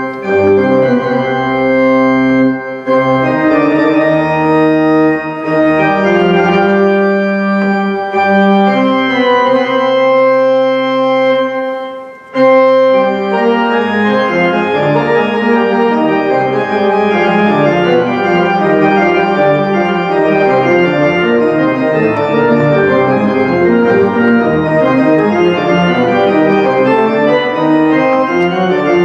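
Casavant Frères pipe organ (Opus 3175) playing, with the pedals sounding the bass line. Slow, held chords for about twelve seconds, a short break, then quicker-moving notes.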